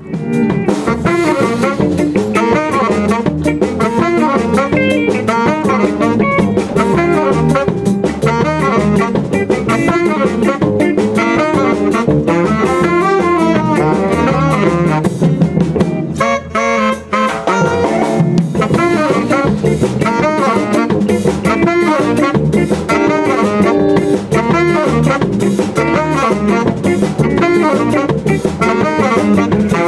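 Live jazz played by a small band: two saxophones over electric guitar and a drum kit. The music cuts in abruptly and runs on steadily, with a brief dip about halfway.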